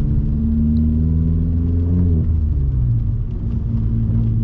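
Car engine and road drone heard inside a Vauxhall Corsa's cabin, with the engine note dropping about two seconds in as the car slows for a turn.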